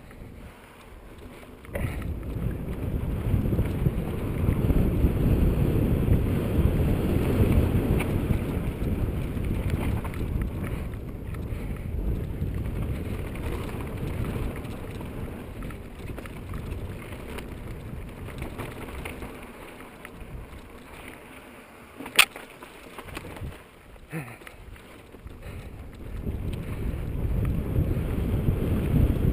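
Wind buffeting the camera's microphone together with the rumble of a mountain bike's knobby tyres on a dirt singletrack descent. The rumble eases off for a few seconds about two-thirds of the way through, with a single sharp knock in that quieter stretch, then comes back strong near the end.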